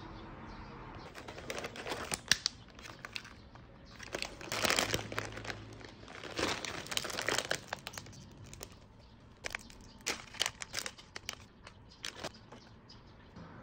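Plastic food packets and cardboard packaging of a meal kit crinkling and rustling as they are handled and lifted out of the box, in irregular bursts with sharp crackles, loudest around the middle.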